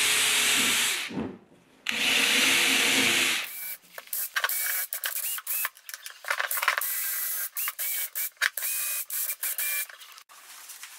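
A power tool runs with a steady whine, stops about a second in, and runs again for about a second and a half. Then come many short, irregular bursts of noise with brief squeaks.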